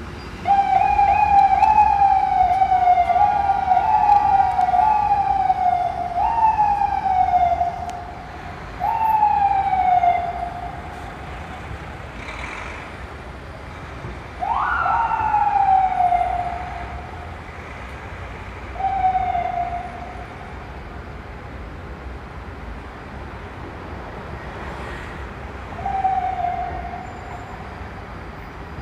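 FDNY ambulance siren sounding in falling sweeps of about a second each. They run back to back for the first several seconds, then come as single bursts every few seconds, one of them starting with a quick rise in pitch. A steady hum of city traffic lies underneath.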